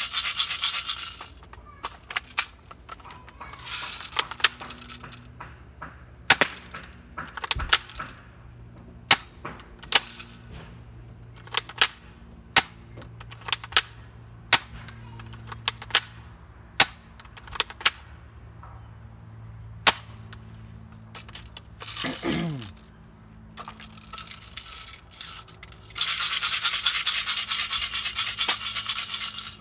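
Airsoft gun firing single shots: more than a dozen sharp cracks, about one a second. A loud steady high buzz fills the first second and the last few seconds, and a short falling whine sounds about two-thirds of the way through.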